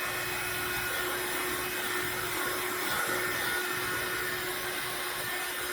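Rechargeable handheld wet/dry car vacuum running steadily, its motor giving a constant hum and whine with the rush of suction air.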